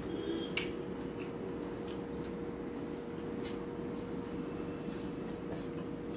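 Fingers mixing and mashing rice on a stainless steel plate: soft squishing with a few light clicks and scrapes against the metal, over a steady hum.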